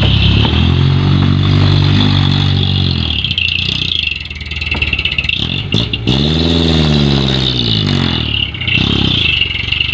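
Diesel dump truck engine revving up and settling back twice as the loaded truck reverses, over a steady high hiss.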